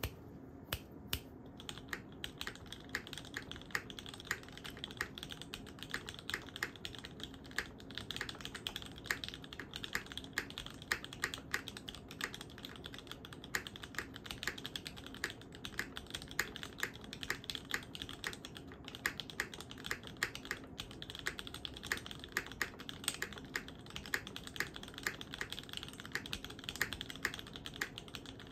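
Continuous typing on a SINGAKBD Kohaku 65% gasket-mount keyboard with a full carbon fibre plate, lubed Gateron Milky-top Tealios linear switches and DCS keycaps. A quick, uneven stream of short key clicks.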